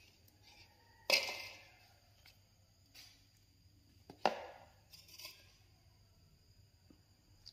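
Metal spoon knocking and scraping in a plastic bowl of dry flour: two sharper knocks, about a second in and about four seconds in, each dying away quickly, with a few fainter taps between.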